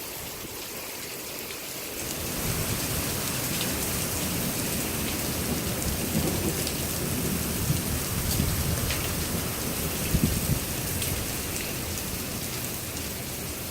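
Steady rain falling and pattering on surfaces, with scattered drop ticks. A low rumble of thunder swells about two seconds in and rolls on under the rain.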